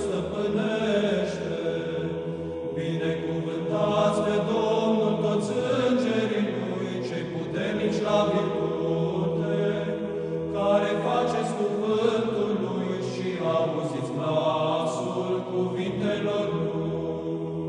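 Eastern Orthodox church chant: voices singing a slow melody over a steady low held drone note.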